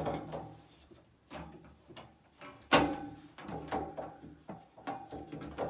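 Sheet-metal radiator end cover being handled and pushed back into place: a series of clattering knocks and clicks, the loudest a sharp knock a little under three seconds in.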